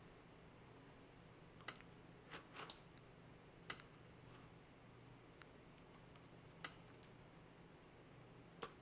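Faint, irregular clicks and light taps, about one a second, of a cat's paws and claws on a plastic spiked cat-deterrent mat as it paws at a string, over quiet room tone.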